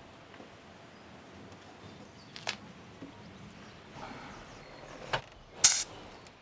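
Faint background broken by three short sharp knocks, one about two and a half seconds in and two about half a second apart near the end, the last the loudest.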